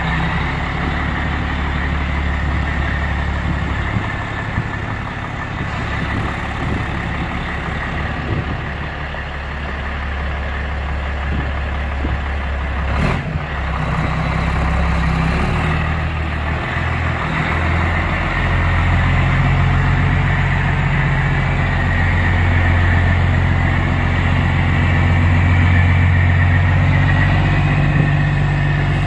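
Caterpillar C12 inline-six turbo diesel of a Sterling L9500 crane truck running steadily, growing louder about two-thirds of the way through, with a single sharp click around the middle.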